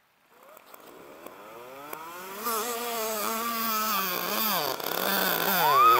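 Mini bike's small engine running, fading in from far off and growing steadily louder as it approaches, its pitch rising and falling with the throttle.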